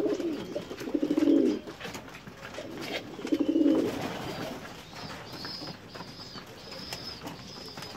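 Racing pigeon cock giving low, rolling display coos, three in the first four seconds, as it puffs up and turns with its tail spread. Faint, short, high peeps repeat through the second half.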